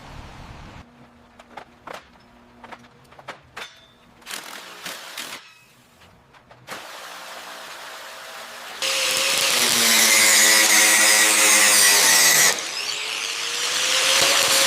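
Scattered clinks and knocks of tools on metal. Then, from about nine seconds in, a power tool running loudly with a high whine; it dips briefly near the end and winds back up, rising in pitch.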